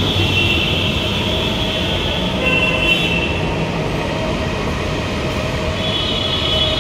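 Steady, loud road-traffic noise, with vehicle horns sounding now and then.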